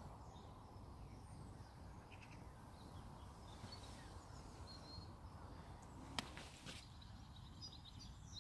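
Faint outdoor ambience: a low steady rumble with a few faint bird chirps, and a single sharp click about six seconds in.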